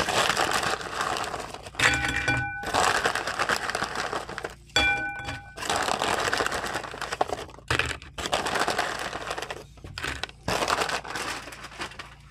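Bag of tortilla chips crinkling and the chips rattling and crunching as they are handled, in uneven bursts.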